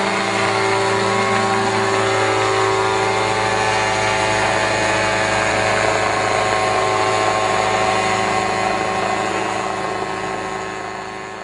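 Helicopter engine and rotor running at a steady speed, a constant droning hum that fades away over the last few seconds.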